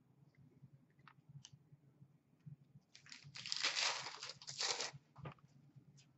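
Foil wrapper of a trading-card pack crinkling and tearing as the pack is opened by hand, lasting about two seconds from about three seconds in, after a few light clicks of card handling.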